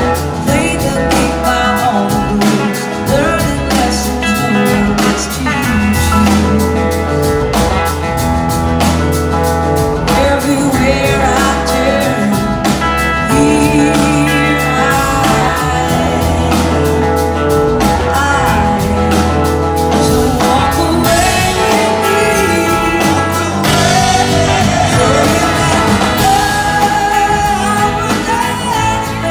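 Live blues-rock band playing: electric guitars, drums and horns, with a woman singing lead, heard from the audience in a large hall.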